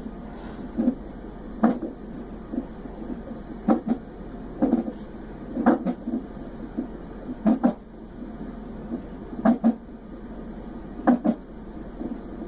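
Fetal heart monitor's Doppler speaker during a non-stress test: a low pulsing fetal heartbeat broken by sharp thumps every one to two seconds, the unborn baby's hiccups.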